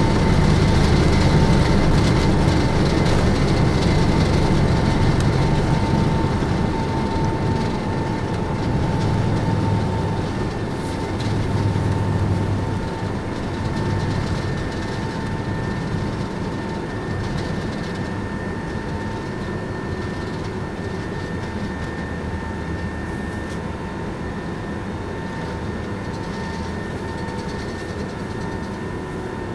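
Jet airliner takeoff heard from inside the cabin: engines at takeoff power with a steady whine over a loud roar, and the wheels rumbling on the runway. The rumble dies away after about twelve seconds as the plane lifts off, leaving a steadier, slightly quieter roar through the climb.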